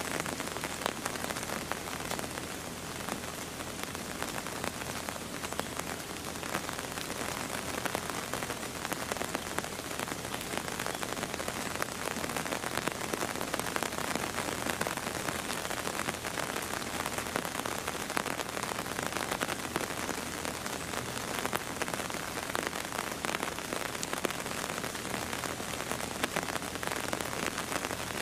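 Steady rain falling: a dense, even spatter of drops that goes on without a break.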